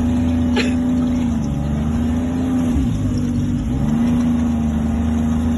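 Snowmobile engine running at a steady speed, its pitch holding level with a brief dip around the middle. A short sharp click about half a second in.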